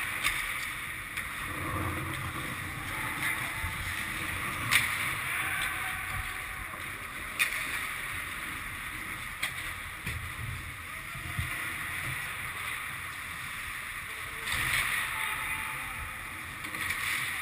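Ice hockey play: skate blades scraping on the ice over a steady hiss, with several sharp clacks of sticks striking the puck. Louder scraping swells about fifteen seconds in and again near the end.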